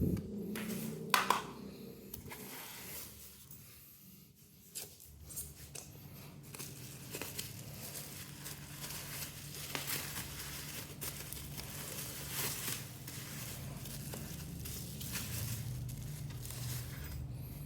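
Packaging being handled during an unboxing: crinkling and rustling of wrapping with scattered sharp clicks and knocks, one louder click about a second in.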